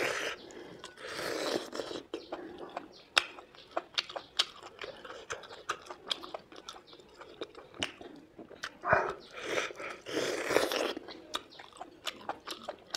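Close-up chewing and biting of buffalo meat: irregular sharp mouth clicks and smacks. There are louder, longer stretches of chewing about a second in and again near ten seconds in.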